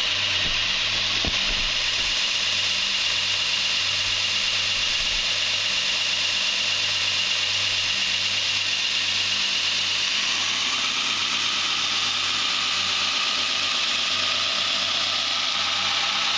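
Belt grinder running with a D2 tool-steel blade held against the belt: a steady grinding hiss over the motor's hum, with a faint higher ringing tone joining in about ten seconds in. The blade keeps trying to dig in, which the maker puts down to a bowed, out-of-square platen.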